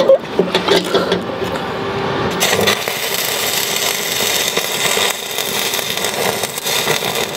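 Electric arc welder tack-welding a steel anode-mounting bolt onto a steel boat hull: a steady, even sizzle that starts about two and a half seconds in and runs until just before the end, after a few knocks of the bolt being positioned.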